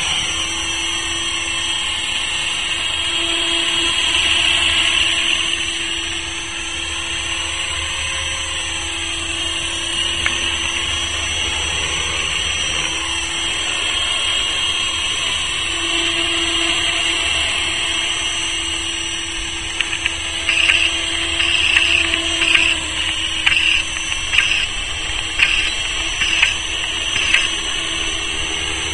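Tarot 450 Sport electric RC helicopter in flight: the high-pitched whine of its electric motor and spinning rotor, bending up and down in pitch as it moves about and passes. In the last third, a run of short, sharp surges comes about once a second.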